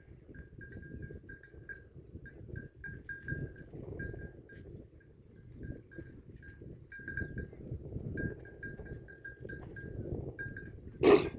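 Bells hung on water buffalo clinking at one pitch in irregular runs of short strikes, a few a second. There is a single loud thump near the end.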